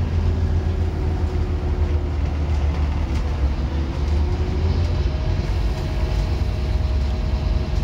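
Scania N230UD OmniCity double-decker bus under way, heard from the upper deck: a steady low drone from its five-cylinder diesel and driveline, with a faint whine that slides slowly down in pitch, then a higher whine rising gently from about five seconds in.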